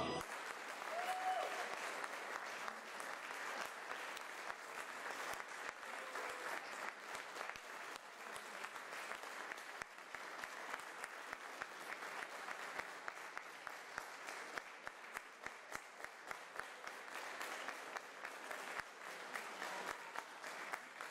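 Concert audience applauding steadily, with the clapping turning into sharper, more separate claps in the second half.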